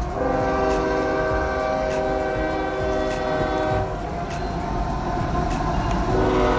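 A train horn sounding a long, held chord over the low rumble of a train running along the tracks below. The horn fades briefly about four seconds in, then sounds again more strongly near the end.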